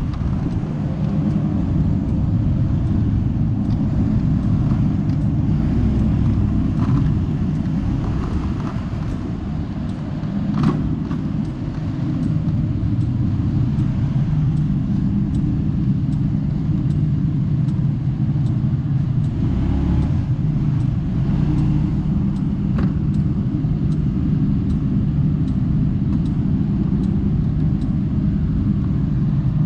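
Kymco Like 125 scooter riding along: a steady low rumble of its small single-cylinder engine and road noise, with a few sharp clicks, the loudest about ten seconds in.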